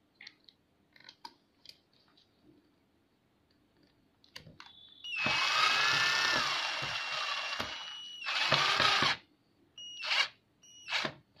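Electric screwdriver driving a screw through a rubber foot into the bench grinder's base: a run of about three seconds with a steady whine, a shorter run, then two short bursts near the end as the screw is tightened. A few light handling clicks come before.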